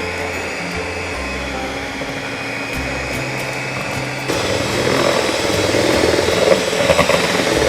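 Electric mixer running steadily as it beats chilled whipping cream into frosting, growing louder about four seconds in.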